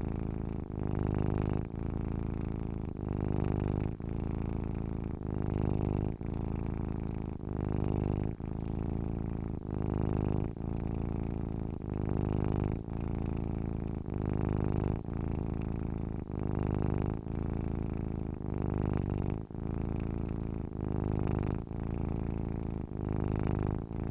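Domestic cat purring steadily: a low, buzzing rumble that swells and dips with each breath in and out, about one full breath every two seconds.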